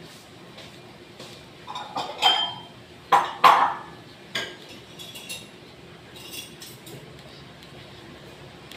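A metal pistol part clinking and scraping as it is wiped and twisted in a cloth, a run of sharp metallic knocks with brief ringing about two to four seconds in, then lighter ticks.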